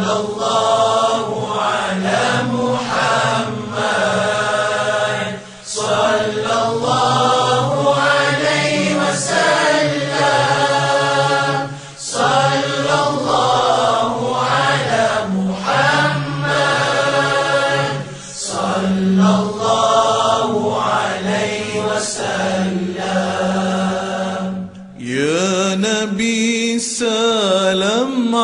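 Arabic devotional chanting of salawat on the Prophet Muhammad: voices sing long, drawn-out, ornamented phrases. There are short pauses between phrases about every six seconds.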